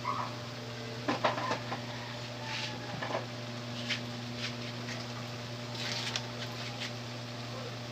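Steady low electrical hum with scattered clicks, taps and a few brief scraping noises, a small cluster of knocks about a second in.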